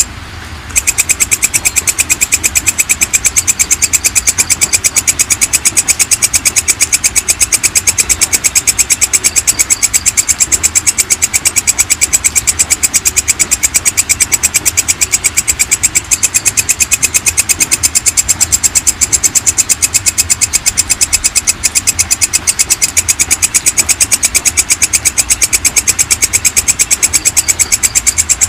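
Belalang kecek (walang kecek) insect calling: a loud, fast, evenly spaced train of high-pitched clicking pulses. It breaks off for under a second right at the start, then runs on without pause.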